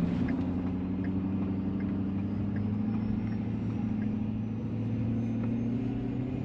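Engine and road noise of a vehicle driving slowly on a snow-packed road, heard inside the cab: a steady low drone that rises slightly in pitch and eases back.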